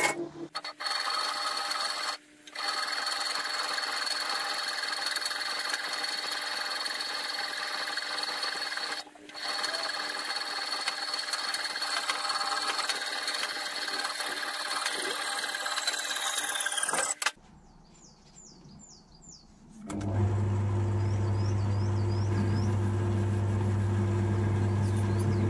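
Metal lathe running while turning a Morse taper: a steady machining noise that stops briefly twice, then winds down about 17 seconds in. After a short quiet spell a steadier, lower motor hum starts.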